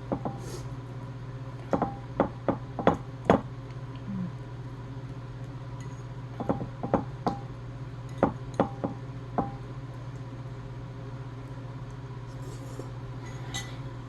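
Sharp clicks and clinks in three quick clusters, some with a short ring, of seafood shells and utensils knocking on plates while eating, over a steady low hum.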